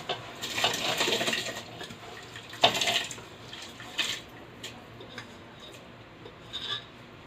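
Dry jeera rice being poured into a pot of boiling water: a rushing pour lasting about a second and a half, a second shorter, louder pour about two and a half seconds in, then a few light clinks.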